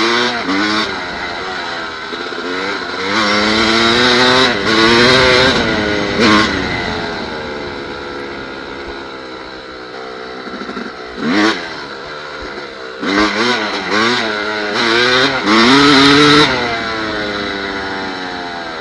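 Yamaha dirt bike engine being ridden hard, revving up and down in repeated bursts of throttle, its pitch rising and falling. It eases off to a lower, steadier note near the end.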